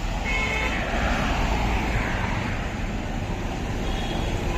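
Road traffic noise: vehicles running by on a highway in a steady hum, with brief faint high tones near the start and near the end.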